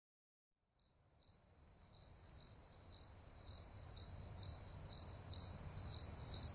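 Crickets chirping: a steady high trill with louder chirps about twice a second, over a low rumble. It fades in about a second in, after silence.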